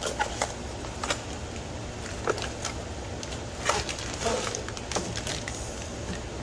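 A small cardboard box being opened and handled: scattered taps, scrapes and rustles of cardboard over a steady low hum.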